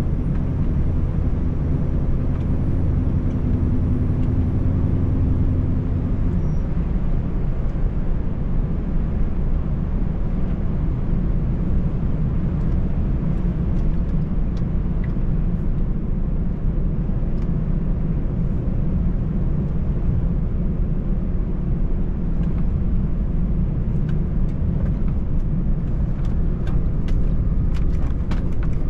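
Scania 590S truck's 13-litre straight-six diesel and tyres on a snow-covered road, heard inside the cab as a steady low drone while driving. About six seconds in, a steady hum within the drone drops away, and near the end a run of light ticks comes in.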